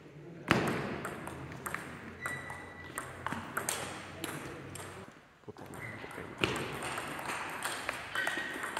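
Table tennis rally: the ball clicking sharply off the paddles and bouncing on the table in quick succession, with a brief lull about five seconds in before the hits resume.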